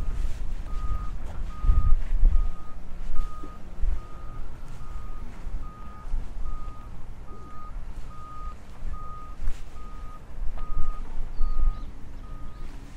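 A vehicle's reversing alarm beeping steadily, one tone about twice a second, over a low rumble.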